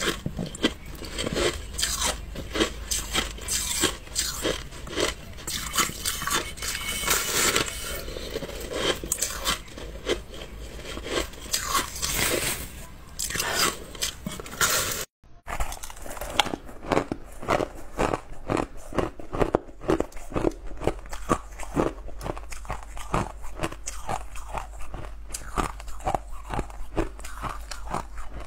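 Ice crunching close to the microphone as it is bitten, chewed and broken apart: a rapid, irregular run of sharp crunches, with a brief break about halfway through.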